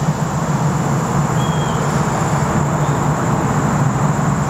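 A steady low rumble with a hiss above it, even throughout, with no single distinct event.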